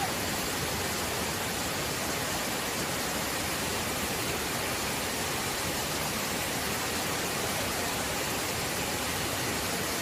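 Waterfall pouring over rocks: a steady, unbroken rush of falling water.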